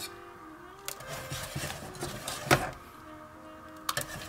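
Wire whisk working a thick cheese sauce in a stainless steel saucepan, with a few sharp clinks of the whisk against the pan, the loudest about halfway through.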